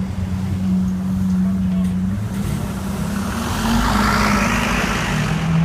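Lamborghini Aventador's 6.5-litre V12 running at a steady low speed while misfiring. Partway through, a rushing noise swells and fades over it.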